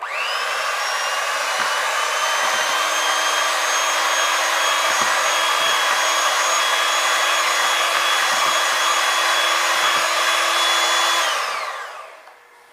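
Electric hand mixer running, its beaters creaming ghee in a plastic bowl. The motor starts at once with a quick rising whine, runs at a steady speed, and winds down with a falling whine near the end.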